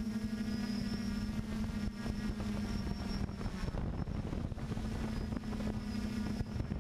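Quadcopter drone's electric motors and propellers whirring steadily, heard from on board: a constant hum with a thin high whine above it, with wind rumbling on the microphone.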